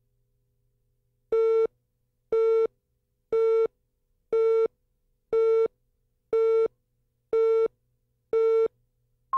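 Videotape countdown leader: a steady pitched beep sounds once a second, eight times, each about a third of a second long, with one very short, higher pip just after the last.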